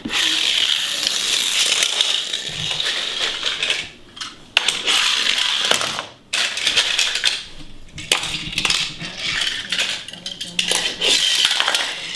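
Die-cast toy cars rolling over a laminate floor: a rattling whir of small wheels, with metallic clinks and clatter as the cars knock into one another.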